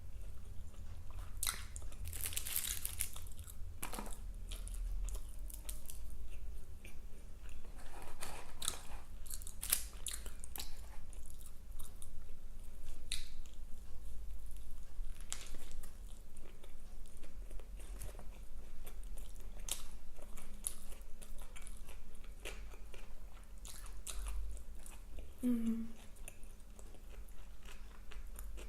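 A person eating fast food close to the microphone: steady chewing and biting with wet mouth clicks and occasional crunchy bites.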